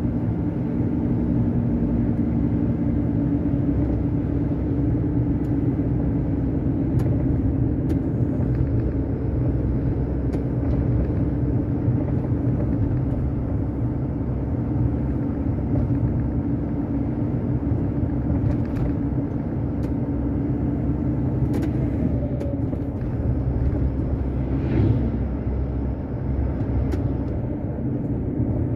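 Truck's engine and tyre noise heard from inside the cab while cruising at steady speed on a motorway: an even, low rumble with a steady engine tone and a few faint clicks.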